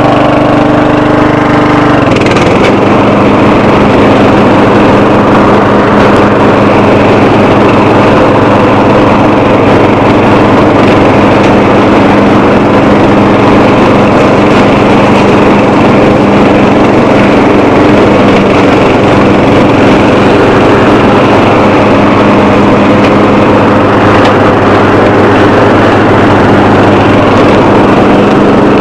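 12 hp Bolens lawn tractor engine running loud and steady, heard from the hood. Its pitch drops once about two seconds in, then holds.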